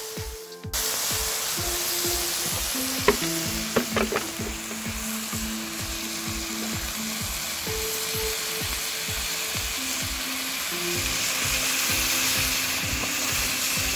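Water poured from a plastic bottle into a hot cast-iron kazan of fried meat, carrots and rice, sizzling and hissing steadily as it hits the hot oil, with a few sharp crackles about three to four seconds in. Quiet background music with a steady beat runs underneath.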